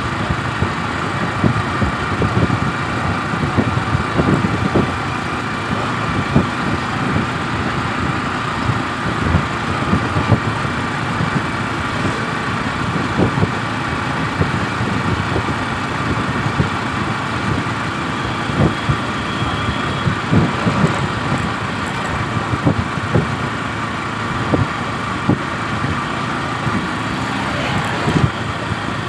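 Steady engine and road noise from a moving vehicle at speed, with irregular low thumps throughout.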